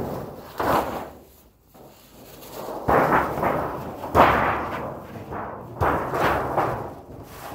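A large, thin sheet of tin is being handled and bent by hand. It flexes and buckles several times, each time with a loud, sudden rattle that rings on briefly.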